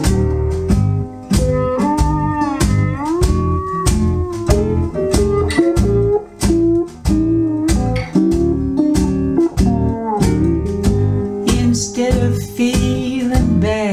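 Recorded music played through a pair of Living Voice OBX-RW hi-fi floor-standing loudspeakers: an instrumental passage of guitar over a steady, rhythmic bass line, with notes sliding up and down in pitch.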